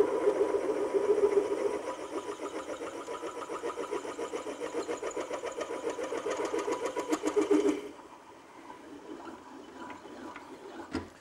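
Milling machine spindle running with a 9/16 drill bit lowered to bore out the hole in a motor plate: a steady machine sound with a fast, even pulsing and a steady whine. It cuts off sharply about eight seconds in, leaving a fainter hum, and a single click comes near the end.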